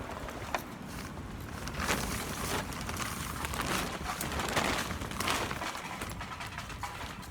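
Wind buffeting the microphone in a low rumble, with several brief rushing bursts and a few small knocks from handling.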